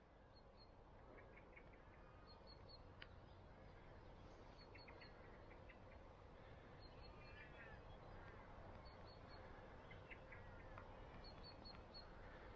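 Faint birds calling in a quiet open landscape: a little run of three or four high chirps repeats every two seconds or so, with lower calls between them, over a soft steady hush.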